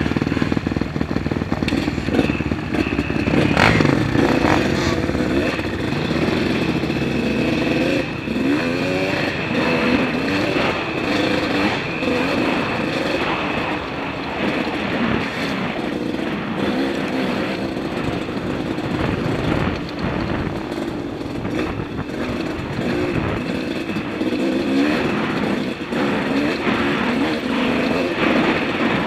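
Dirt bike engine running as the bike rides along a dirt trail, its pitch rising and falling with the throttle, heard close from a helmet-mounted camera.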